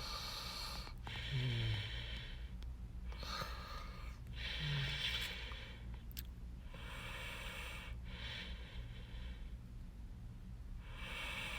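A man breathing close to the microphone, one noisy breath after another every second or two, over a steady low electrical hum.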